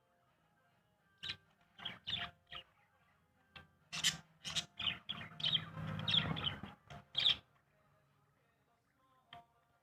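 Small birds giving short, sharp chirps in irregular bursts, thickest in the middle of the stretch, with a low rustle under the calls around then. The calls stop a couple of seconds before the end.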